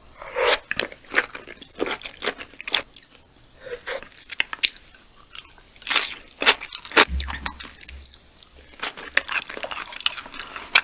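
Close-miked chewing of raw yellowtail sashimi, with many small mouth clicks.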